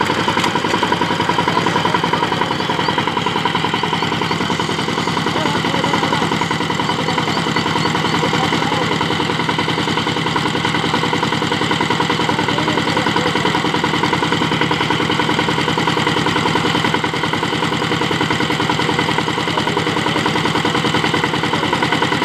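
16 hp single-cylinder diesel engine of a two-wheel power tiller running steadily under load, a rapid, even chugging.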